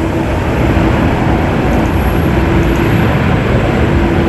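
Loud, steady jet noise from a Boeing 747-8 freighter's four General Electric GEnx engines, with a droning tone through it.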